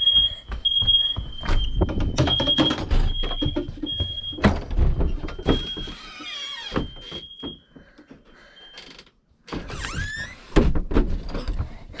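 Household smoke alarms beeping over and over at one high pitch during an alarm test, the beeps fading out about three-quarters of the way through. Footsteps and thuds on the stairs run under the beeps, with a squeak near the middle and another near the end.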